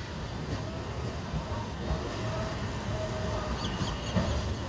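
Steady low rumble of a passenger train's coaches running slowly along a station platform, heard from the doorway of one of the moving coaches.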